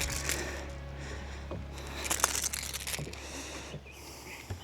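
A caught bass being landed and handled, with short bursts of splashing and rustling, over a steady low hum that stops near the end.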